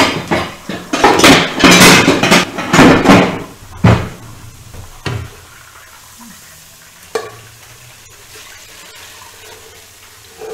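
Cookware handled on a cooktop: a few seconds of loud metal scraping and clatter of a spatula and pans, then three single knocks of pots set down, spaced a second or two apart.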